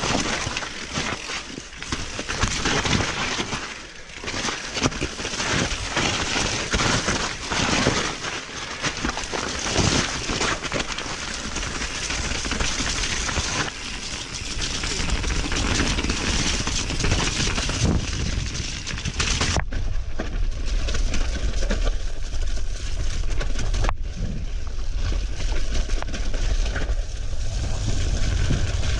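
Rushing, crackling noise of a mountainboard ride over snow. About twenty seconds in it cuts abruptly to a steadier, low rumbling noise.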